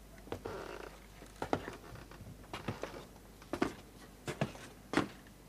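Quiet room with faint, scattered small clicks and rustles, five or six short ticks spread over a few seconds.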